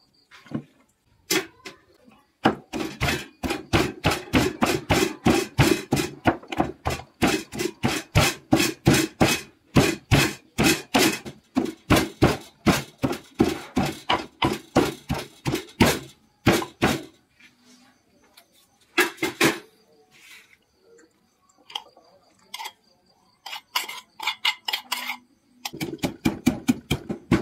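Wooden pestle pounding in a wooden mortar, about three strokes a second for some fifteen seconds as it bruises cut long beans. After a pause with a few light knocks, a quicker run of strokes near the end crushes peanuts.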